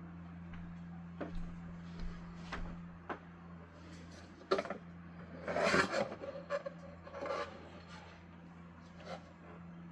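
A hard plastic 3D print being handled: scattered light clicks and scrapes, with a denser burst of scraping and rattling about five to six seconds in. A steady low hum runs underneath.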